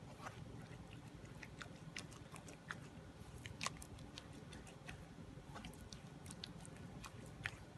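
Fingers pressing and rubbing wet batter through a metal mesh sieve: faint, irregular small wet clicks and squelches, scattered unevenly throughout.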